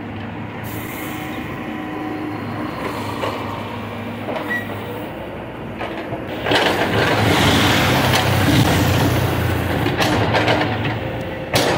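Backhoe loader's diesel engine running steadily, then louder from about six and a half seconds in as the engine works harder and the bucket scrapes through soil and gravel in the trench.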